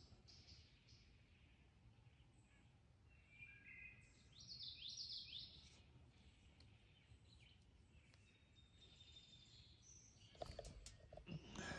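Faint songbirds chirping in short phrases over a quiet outdoor background hum. About ten and a half seconds in come a few soft knocks and rustling.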